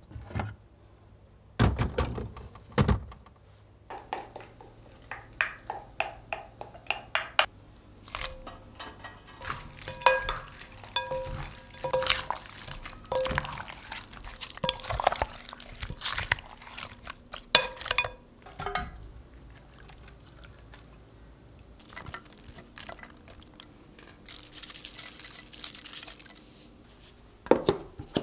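Wooden spatulas tossing raw crab pieces in thick red seasoning in a glass mixing bowl: wet squelching with light clinks against the glass. Before it, plastic food containers knock onto a fridge shelf, and near the end there is a loud click as a plastic lid is pressed down onto a storage container.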